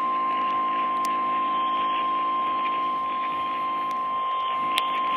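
Emergency Alert System attention tone for a severe thunderstorm warning: a single steady tone just above 1 kHz, received over the radio with a steady hiss and a few faint clicks.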